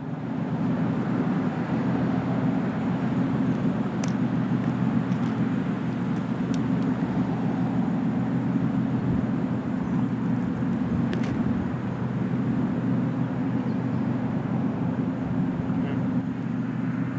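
Steady low hum of a running motor under outdoor background noise, with a few faint clicks.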